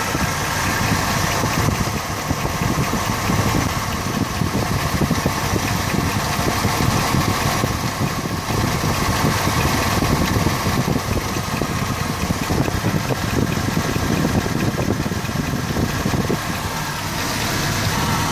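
2003 Chevy Tahoe V8 idling with the AC belt drive running, a steady engine sound with uneven low pulsing. This is the AC noise that remains after the belt tensioner was replaced; the owner does not know its cause.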